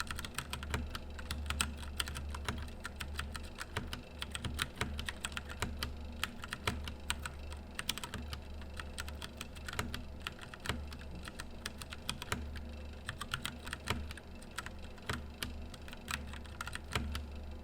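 Royal Kludge RK68 65% mechanical keyboard being typed on at a normal pace: a fast, irregular stream of key clicks and clacks, with a steady low hum underneath.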